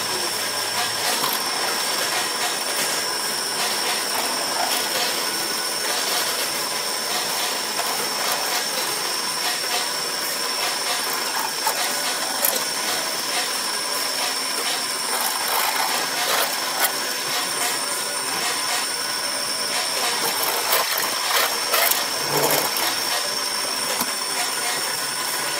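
HSS step drill bit in a drill press cutting into a metal plate: a steady high-pitched metallic whine over the running drill, with scattered clicks and ticks as chips break off.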